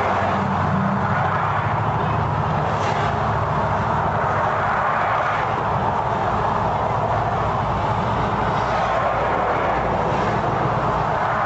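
Steady vehicle noise: engines running and traffic on the road, with a low engine hum that fades after the first few seconds.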